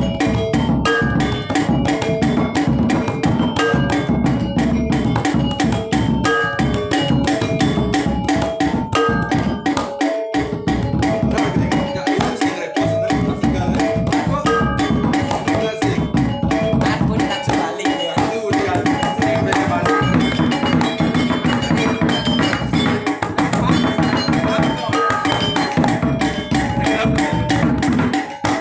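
Balinese gamelan music for a topeng mask dance: drums and metal percussion beat a fast, dense rhythm under ringing, bright pitched notes.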